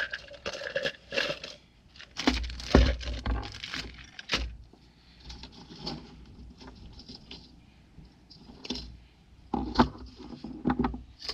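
A coil of thin brass-coloured jewelry wire handled on a wooden desk, with small metallic clinks and rattles and a few heavier knocks. Near the end, pliers click against the wire.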